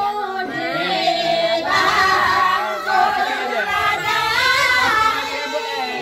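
Several voices singing together unaccompanied, their melodic lines wavering and overlapping.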